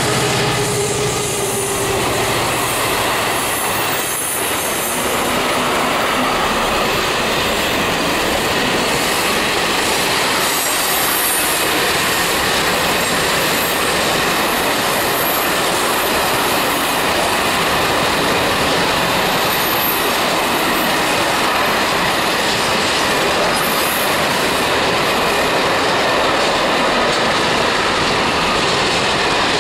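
Container wagons of a long freight train rolling steadily past, with wheels squealing on the curved track. In the first couple of seconds, the passing Class 335 diesel locomotive's engine drone fades away.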